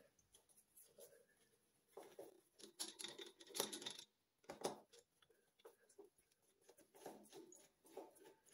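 Faint, irregular clicks and scrapes of a Phillips screwdriver turning out the screws that hold a shower mixer cartridge in its wall box.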